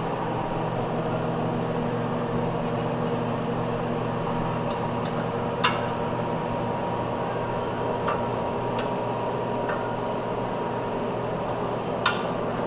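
A steady electrical hum made of several pitched layers, broken by a few sharp clicks, the loudest about six and twelve seconds in.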